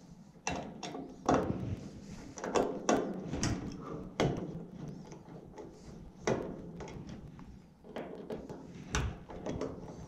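Irregular knocks, clicks and rattles of hands and tools working at a gas unit heater's control wiring, about a dozen sharp hits spread unevenly.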